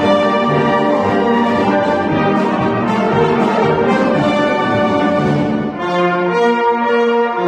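Brass band playing a slow piece of sustained chords; about six seconds in the sound thins to a few long held notes.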